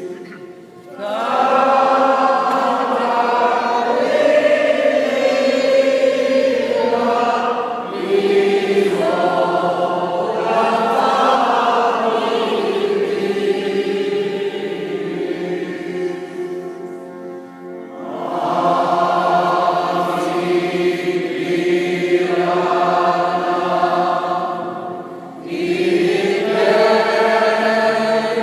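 Congregation of men and women singing together in unison, in long sustained phrases separated by short breaks.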